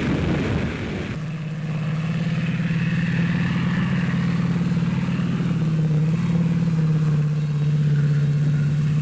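Tank engine running with a steady low drone, after about a second of rougher, noisier sound at the start.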